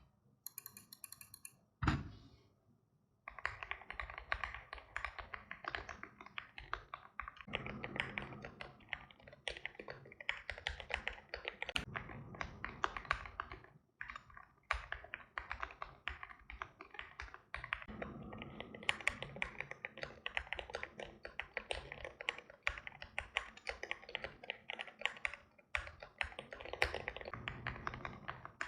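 Fast, continuous typing on a custom mechanical keyboard with lubed Prevail Epsilon linear switches (JWK stem, 68 g long spring), a polycarbonate plate, gasket mount, foam-filled aluminium case and Cherry-profile keycaps. A single thump comes about two seconds in, and the typing starts about a second later, with two brief pauses along the way.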